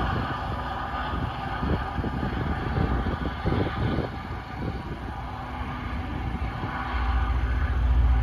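Rail grinder train grinding the rails: a steady rasping noise with a faint whine, heard as the train works along the track. A low rumble grows louder near the end.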